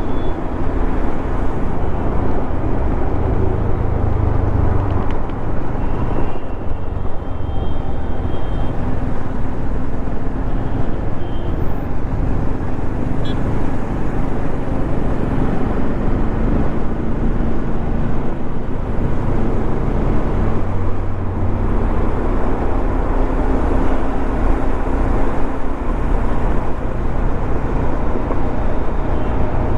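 Bajaj Dominar 400's single-cylinder engine running at cruising speed under a steady rush of road noise, its note easing and picking up a little with the throttle.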